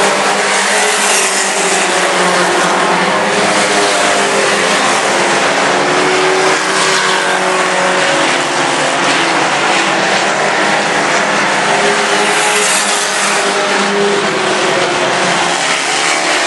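A pack of mini pickup race trucks running hard around a dirt oval. Several engines overlap, their pitch rising and falling as the trucks accelerate and back off through the turns.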